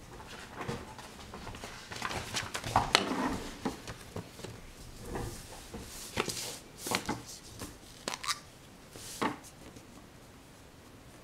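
Irregular knocks and clicks in a small room, about a dozen spread unevenly, the loudest cluster about three seconds in.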